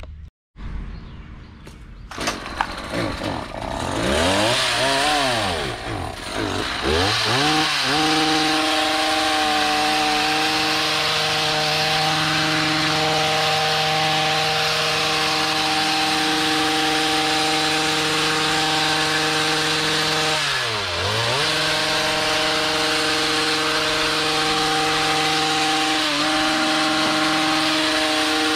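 Small two-stroke engine of a handheld gas landscaping tool, revved up and down several times, then held steady at high speed, with one brief drop and recovery about two-thirds of the way through.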